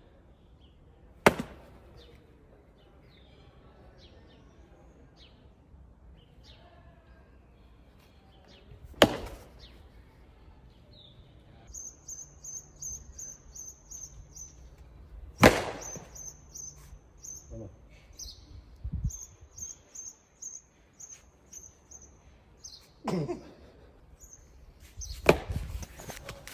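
Three sharp smacks several seconds apart. From about midway, a bird chirps in quick runs of repeated high notes.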